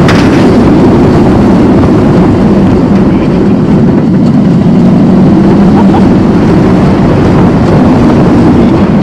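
Loud, steady rush of wind on the rider-mounted microphone together with the rumble of a Mako coaster train running at speed along its steel track.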